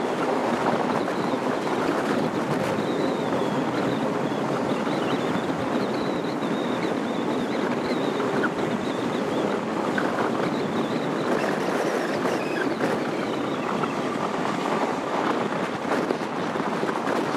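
Wind buffeting the microphone held out of the window of a moving ALe 940 electric railcar set, over the steady running noise of the train on the rails. A faint, high, wavering wheel squeal runs through the middle as the train rounds a curve, with a few scattered clicks.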